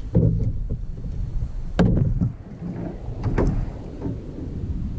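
Hollow knocks and thumps on a plastic paddle boat as a person shifts about in it, three sharp ones standing out: near the start, just under two seconds in, and a little after three seconds. A low rumble runs underneath.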